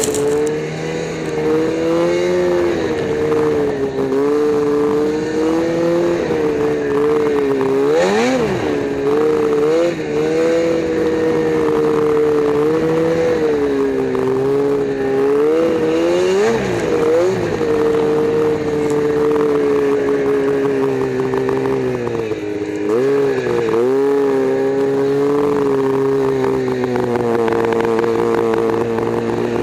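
Snowmobile engine running under way through deep snow, its pitch rising and falling with the throttle, with quick drops and re-revs about eight, sixteen and twenty-three seconds in.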